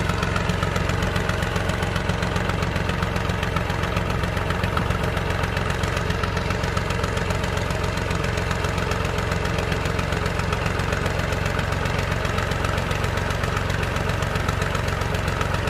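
Farm tractor's diesel engine running steadily at a low, even speed, with a rapid regular knock.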